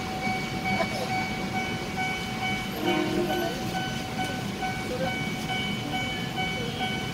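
Steady hum and low rumble of a train standing still or creeping slowly, with a constant whine that holds one pitch throughout.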